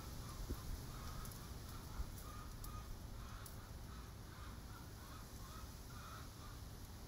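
Chickens clucking faintly, a run of short repeated calls.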